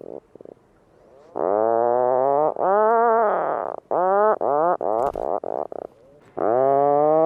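Puffin calls: a series of low moaning calls, each rising and then falling in pitch. The first two last about a second, followed by several shorter ones in quick succession.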